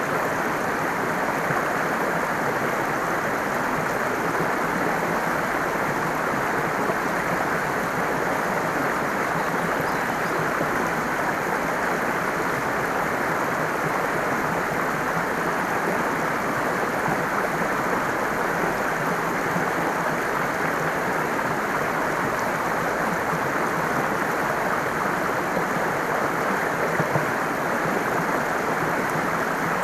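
Running water rushing steadily, an even unbroken wash of sound.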